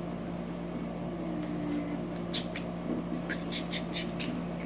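Fidget spinner being flicked and spun by hand on a wooden surface, with a quick run of about seven sharp clicks starting about halfway through, over a steady low hum.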